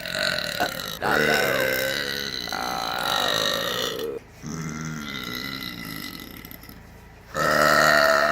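A woman burping: a string of long, drawn-out belches, each lasting a few seconds, with a louder one starting near the end.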